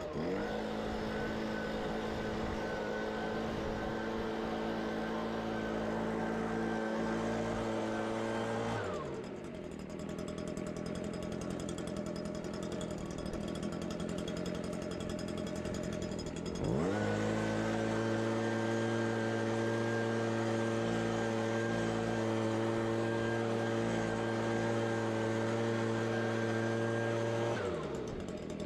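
Blower engine running up to full speed and held steady for about nine seconds, then dropping back to a lower idle. About seventeen seconds in it runs up again, holds steady and winds down near the end. It is blowing freshly sprayed paver sealer smooth.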